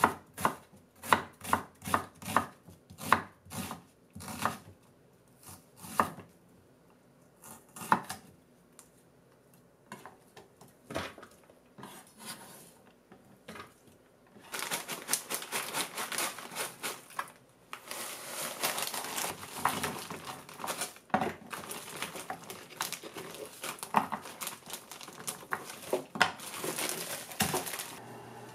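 Kitchen knife slicing an onion on a wooden cutting board, about two to three chops a second at first, then only now and then. From about halfway, a continuous rustling and scraping as the sliced onion is gathered off the board into a stainless steel tray.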